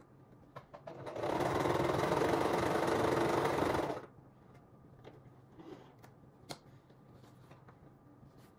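Singer Start 1304 electric sewing machine running for about three seconds as it top-stitches along a folded fabric edge, then stopping abruptly. A few light clicks follow.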